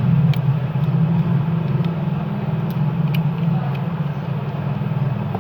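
Steady low machine hum, with a few faint light clicks from a small screwdriver working a screw out of a phone's circuit board.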